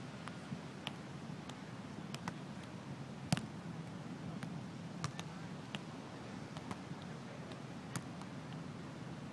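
Beach volleyball rally: a few sharp slaps of hands and forearms on the ball, the loudest about three seconds in and another near the end, over a steady low rush of wind and surf.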